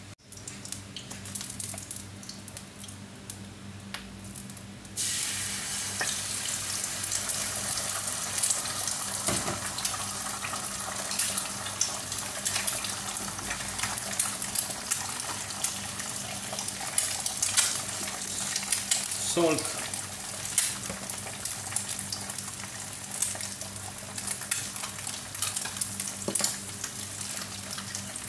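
Eggs frying in hot cooking oil in a nonstick wok: a dense, crackling sizzle that starts suddenly about five seconds in, after a quieter stretch with a low hum.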